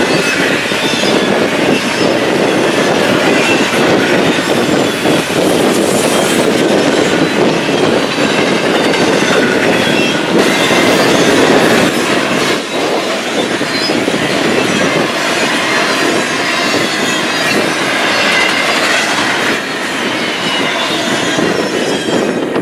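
Double-stack intermodal freight train's well cars rolling past close by: steady loud noise of steel wheels on rail, with a faint high wavering wheel squeal. The noise drops away suddenly at the very end as the last car clears.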